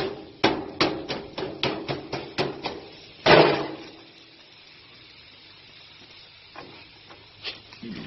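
Rapid hammer blows on a gas grill's metal grate and the toys on it, about four a second. They stop after about two and a half seconds, followed by one loud, short burst of noise.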